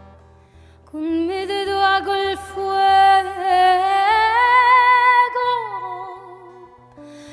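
A song: a solo voice comes in about a second in and sings long, slightly wavering held notes over a low pulsing bass, rising in pitch midway and dropping away near the end.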